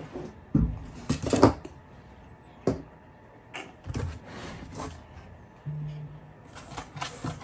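Packaging being handled inside a cardboard box: scattered rustles and light knocks, with a brief low hum about six seconds in.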